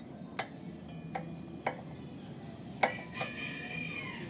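Light metallic clicks and clinks of a tool and small parts being worked on a motorcycle's front brake caliper: four sharp ticks spread out, then a short metallic ring near the end.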